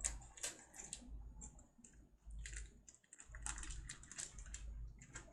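Knife cutting through fish: a run of irregular short clicks and brief scrapes as the blade works through the flesh.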